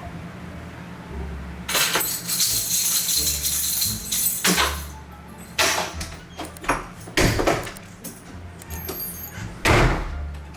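Background music with a steady beat, over a loud jangling rattle for about two seconds and then a series of sharp clattering bangs, the loudest near the end, as household objects are shaken and banged together to make noise.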